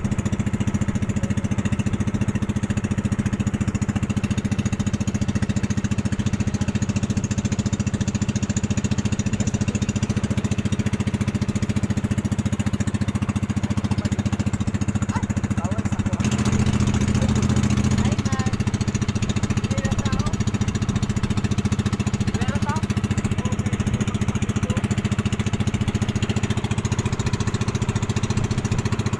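Engine of a motorized outrigger boat (bangka) running steadily underway, a constant drone that swells slightly for a couple of seconds midway.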